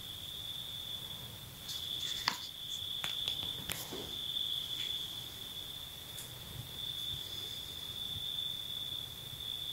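Crickets chirping in a continuous high trill that swells and fades, with a few faint clicks and taps between about two and four seconds in.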